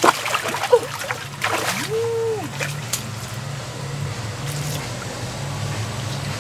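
Water splashing and sloshing as hands grab at fish in shallow muddy water, busiest in the first second and a half, then settling to a quieter trickle over a low steady hum. A short rising-and-falling tonal call sounds about two seconds in.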